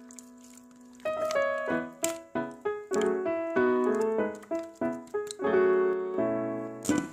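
Background piano music: a held chord fades away, then a brisk, bouncy run of short piano notes starts about a second in.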